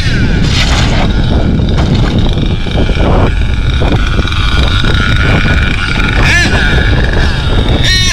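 Small nitro engine of an HPI Savage X4.6 RC monster truck running hard, its high whine rising and falling as it is revved, over a heavy low rumble.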